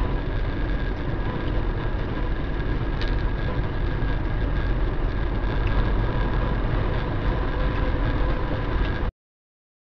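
Steady road and engine noise inside a car cruising at highway speed, picked up by a dashcam microphone, with a faint steady hum over the rumble. It cuts off abruptly near the end.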